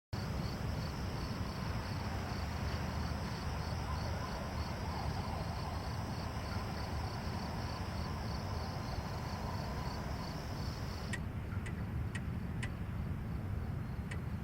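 Night ambience: crickets chirping in an even, steady pulse over a constant low rumble, with a few sharp ticks near the end.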